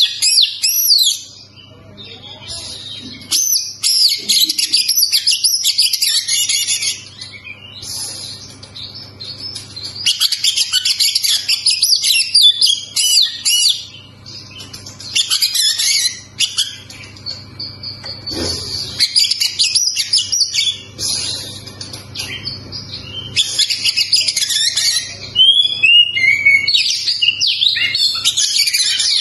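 Male oriental magpie-robin singing: loud, rapid, varied whistles and warbles in bursts of several seconds, broken by short pauses.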